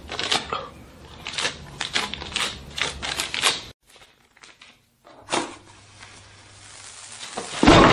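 Paper bill crinkling and rustling as it is folded and handled. After a short silence, a sharp click starts a steady hiss that lasts about two seconds, and a loud burst of sound comes near the end.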